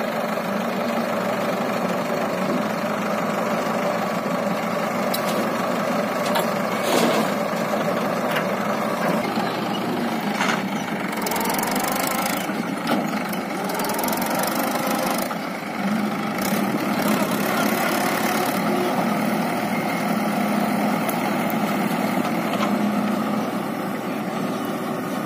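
Diesel engines of a backhoe loader and a Mahindra 575 DI tractor running steadily, with a few sharp knocks now and then.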